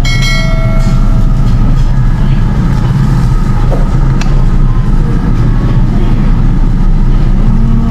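Steady, loud low rumble throughout, with a short ringing tone of several pitches in the first second.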